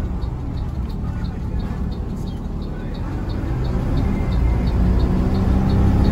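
Diesel engine of an intercity bus running, heard from inside the cabin, with a light tick repeating about three times a second. The engine grows louder from about two-thirds of the way through as the bus picks up.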